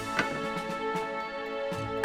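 Background music with held notes, and a single short knock about a fifth of a second in.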